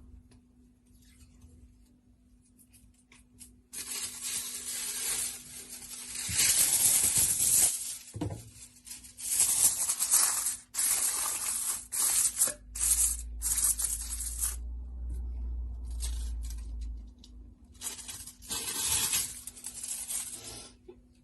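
Irregular bursts of crinkling, tearing noise, as of wrapping material being handled, starting about four seconds in and stopping just before the end. A low hum runs under it for a few seconds in the middle.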